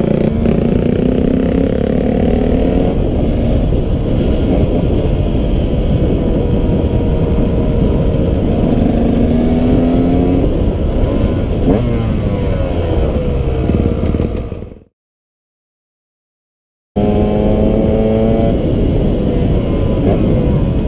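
Enduro dirt bike's engine heard from the rider's seat, revving up again and again in rising runs as it shifts through the gears at speed, over a heavy rumble of wind on the helmet microphone. The sound cuts out completely for about two seconds about two-thirds of the way through, then the engine comes back revving.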